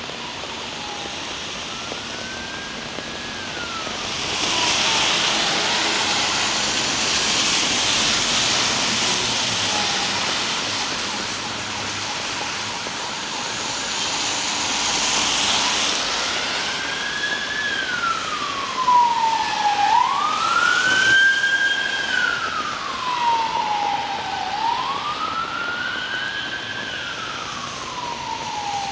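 Emergency vehicle siren wailing, sweeping slowly up and down about every four to five seconds. It grows loud about halfway through, over a steady hiss of heavy rain that swells for several seconds in the first half.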